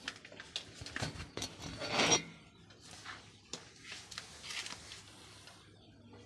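Scattered light knocks and rustles of a toddler crawling and handling things close by, with a louder rustle about two seconds in.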